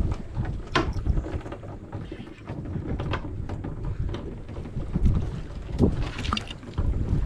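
Wind buffeting the microphone, a gusty low rumble rising and falling, with scattered sharp clicks and knocks from handling a fishing rod and spinning reel.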